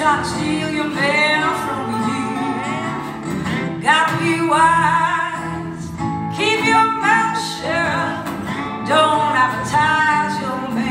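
A woman singing a blues song in phrases with short pauses, accompanied by two acoustic guitars, played live.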